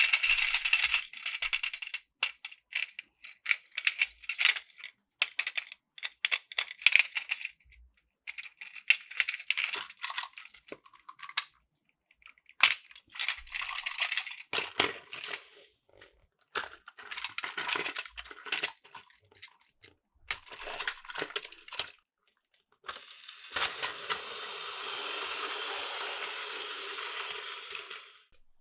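Plastic toy trains being handled and coupled: quick clusters of clicks and rattles. About 23 seconds in, a steady whir of a battery-powered toy train running on plastic track for about five seconds.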